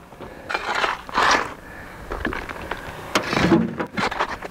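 Shovel scooping loose broken rock, with stones scraping and clattering in several separate strokes about a second apart.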